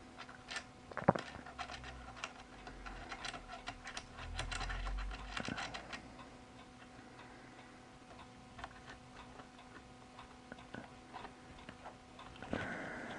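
Light clicks and taps of metal camera-rig parts being handled while the battery plate is screwed down, many in the first six seconds and only a few after.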